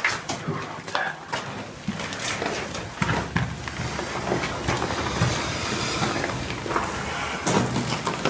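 Footsteps and rustling handling noise in a small room, with scattered knocks and clicks; a low rumble comes in about three seconds in.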